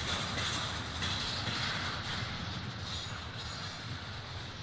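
BNSF double-stack intermodal train's well cars rolling past: a steady rumble and hiss of steel wheels on rail.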